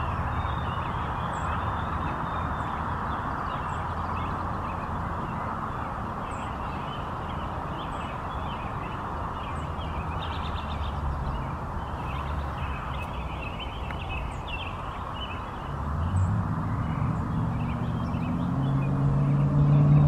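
Northern flickers calling during their courtship dance, a run of short, quick notes over a steady rumbling background. A low hum swells over the last few seconds.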